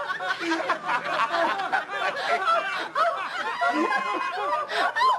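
Several men and women laughing hard together, with overlapping giggles and chuckles.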